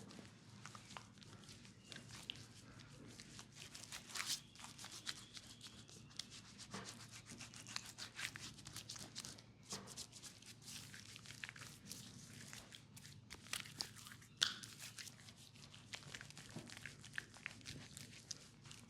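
Hands rubbing and tapping on skin during a leg massage: irregular rubbing strokes and many short sharp taps, the loudest about four seconds in and again about fourteen seconds in, over a faint steady low hum.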